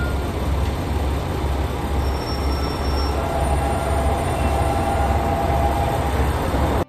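A vehicle running: a loud, steady low rumble with broad road or track noise, and thin squealing tones joining about three seconds in.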